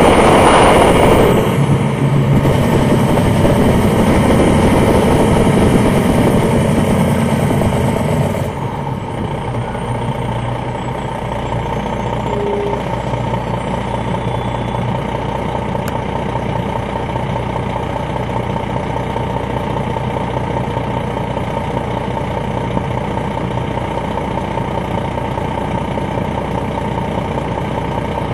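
2001 MCI D4000 coach bus, heard from inside, with its Detroit Diesel Series 60 inline-six diesel running. There is a loud noisy surge in the first second or two, then steady running that drops in level about eight seconds in and carries on as a steady, quieter engine drone.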